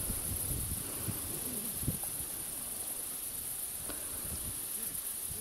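Insects in the grass trilling steadily at a high pitch, with irregular low rumbles and soft knocks underneath.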